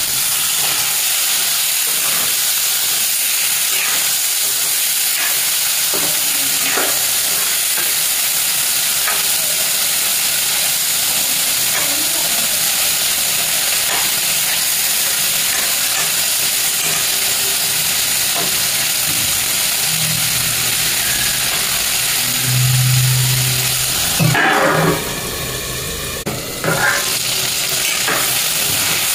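Stuffed brinjals sizzling in hot oil and masala in an aluminium kadhai, a steady hiss with the light scrape of a metal spatula stirring them. About 24 seconds in there is a brief louder noise, and a short low hum before it.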